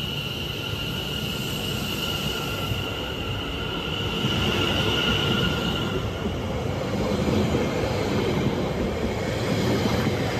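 Greater Anglia Class 720 electric multiple unit running along the platform close by: a continuous rumble of wheels on rail, with a steady high-pitched squeal that stops about six seconds in. The rumble grows louder in the second half as the carriages pass right beside.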